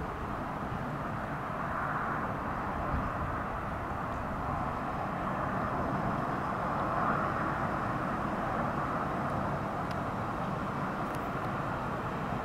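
Class 86 electric locomotive approaching at the head of a container train: a steady whirring drone with a low rumble, growing slowly louder.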